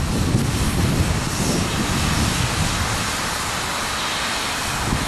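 Hunslet Austerity 0-6-0ST saddle-tank steam locomotive moving off at low speed, with a steady hiss of steam from its open cylinder drain cocks.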